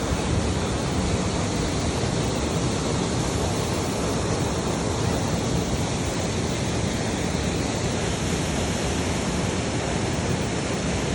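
Waterfall water rushing steadily, an even unbroken hiss and roar.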